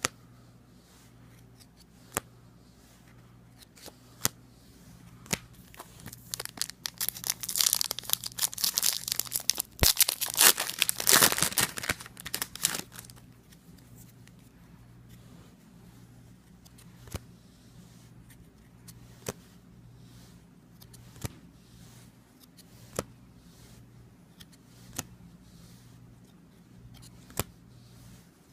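A trading card pack's wrapper being torn open and crinkled for several seconds, with scattered light clicks before it and single sharp clicks about every two seconds afterwards as the cards are handled.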